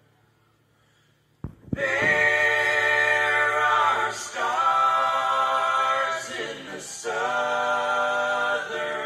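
A choir singing long, held chords without accompaniment. It comes in suddenly, with a click, after about a second and a half of near silence, and pauses briefly between phrases.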